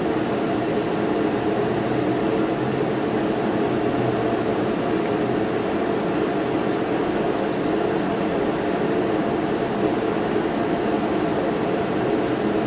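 A steady, even drone with a faint hum in it, unchanging.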